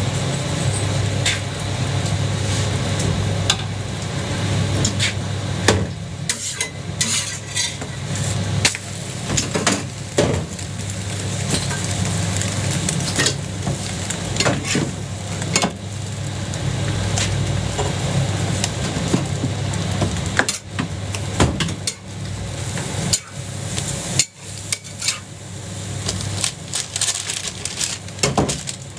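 Jianbing being cooked on a hot griddle: sizzling, with a metal spatula repeatedly scraping and tapping the griddle in many sharp clicks, over a steady low rumble.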